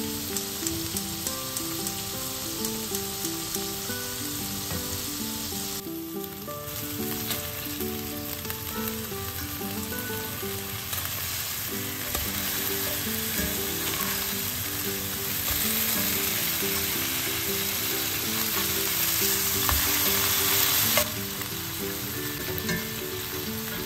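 Meat patties sizzling as they shallow-fry in olive oil in a cast-iron skillet, the sizzle growing louder for several seconds in the second half. Soft background music with a stepping melody plays underneath.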